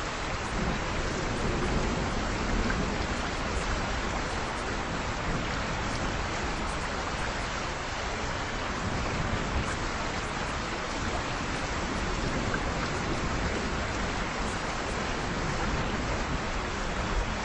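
Steady recorded rain falling: an even, unbroken hiss of rain with no breaks or changes.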